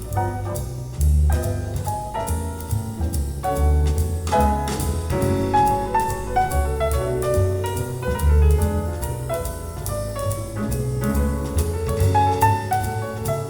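Recorded jazz with piano, deep bass and drums played back through a Viva Audio valve-amplified hi-fi system in a show room; the deep bass notes come in strong, repeated pulses.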